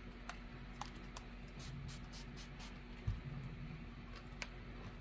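Faint handling noises of a small iron being worked over a quilt block on a wool pressing mat: scattered light clicks and one soft low thump about three seconds in, over a steady low hum.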